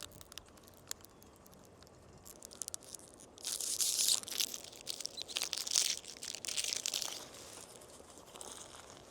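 A few small clicks, then about three and a half seconds of crinkly tearing and rustling as a roll of 120 medium format film is unwrapped for loading, fading to faint handling noise near the end.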